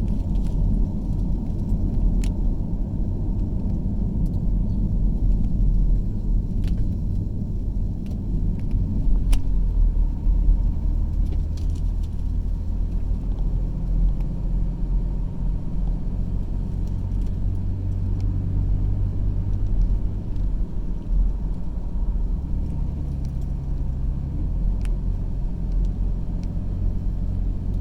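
Car engine and road noise heard from inside the cabin while driving, a steady low rumble with a few light clicks and rattles.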